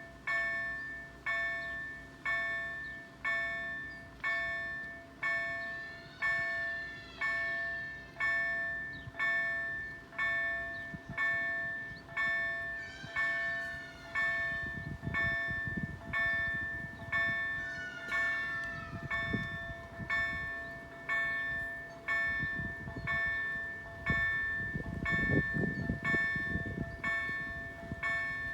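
EDG-2005 level-crossing warning bell ringing steadily, about one clear chime a second, signalling an approaching train. In the second half a low rumble builds beneath it, loudest near the end.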